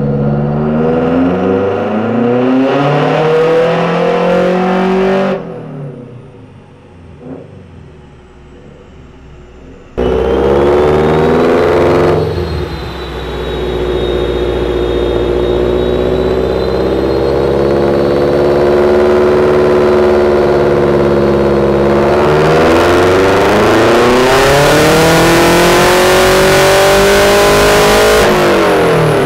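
Subaru EJ257 turbocharged flat-four engine running on a chassis dyno. Its pitch climbs for the first few seconds, drops away suddenly about five seconds in, and comes back abruptly at ten seconds to hold fairly steady. From about 22 seconds it rises again in a power pull with a loud rush of noise, falling off just before the end.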